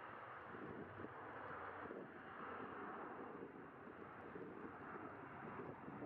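Steady noise of jet airliner engines, even throughout with no distinct whine.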